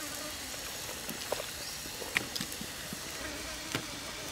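A knife chopping raw chicken on a wooden cutting board: a few sharp, irregularly spaced knocks over a steady background hiss.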